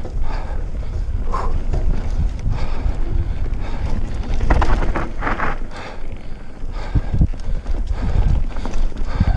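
Wind buffeting the microphone as a Cube Stereo mountain bike rides fast down a dirt singletrack, with tyre rumble and the bike's chain and frame clattering over bumps. The clattering comes in bursts, the strongest about halfway through and again near the end.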